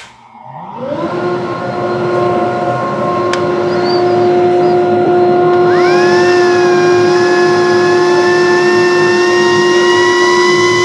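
Single-stage bag dust collector starting up: the motor and impeller spin up within about a second and settle into a steady hum, drawing air through a 12-foot flex hose stretched out straight. About six seconds in, a high air whistle joins and slowly rises in pitch.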